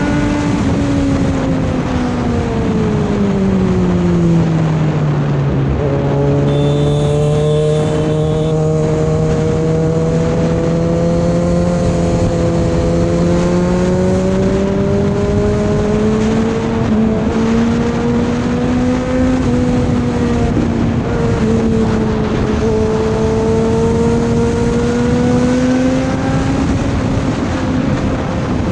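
Motorcycle engine under way with heavy wind rush: the engine note falls over the first few seconds, shifts abruptly about six seconds in, then climbs slowly and steadily as the bike speeds up again.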